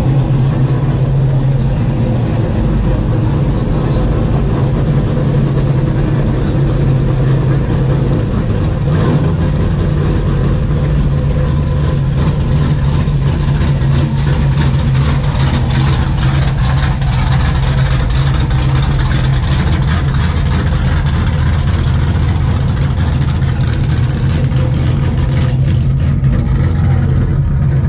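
Engines of lifted pickup trucks and SUVs rolling slowly past in a line, a steady low engine drone with some revving.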